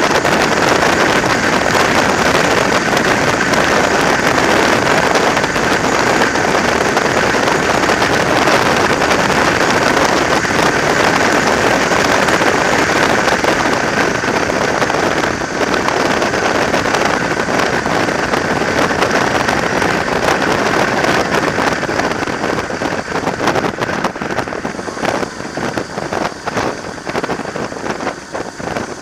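Wind rush on the microphone of a camera riding on a moving motorcycle, mixed with the sound of the bike underway. It is loud and steady, then eases and turns gusty and uneven over the last several seconds.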